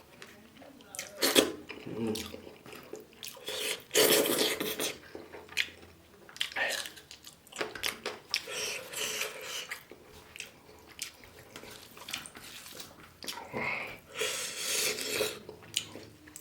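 Eating sounds: chewing and mouth noises in irregular bursts, the loudest about four seconds in.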